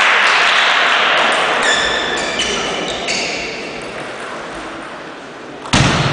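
Table tennis balls making short ringing ticks off tables and bats over the steady murmur of a large hall. A single sudden loud knock comes near the end.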